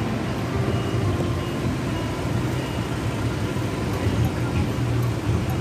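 Street traffic noise: vehicle engines running close by, with a steady low engine hum under a constant wash of road noise.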